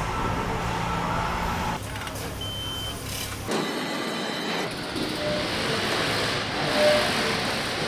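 Factory floor noise: a steady mechanical hum and clatter of assembly machinery, changing abruptly a couple of times. A few short electronic beeps sound during it, one high-pitched and two or three lower ones.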